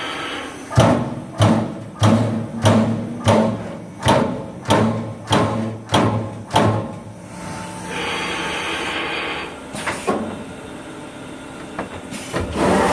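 Accurl MAX-SF-30 ton hydraulic CNC turret punch press punching sheet metal on its cut-off stage: about ten sharp hits at a steady pace of roughly one and a half a second, each ringing briefly. After the hits comes a steady hiss lasting a couple of seconds, then a few light clicks.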